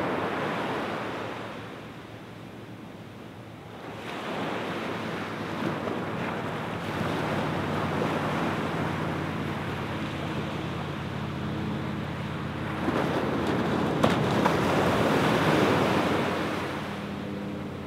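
Small waves washing onto a sandy beach, swelling and easing: a wash at the start, a short lull, then a longer surge that builds to its loudest near the end before falling back. Some wind on the microphone.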